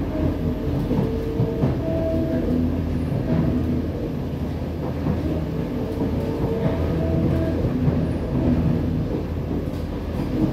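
Interior running noise of a Kawasaki-Sifang C151B metro train car under way: a steady rumble from wheels and running gear, with short humming tones that come and go and occasional clicks.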